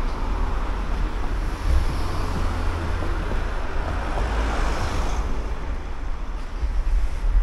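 Street traffic: a car drives past, its tyre noise swelling toward the middle and fading, over heavy wind rumble on the microphone.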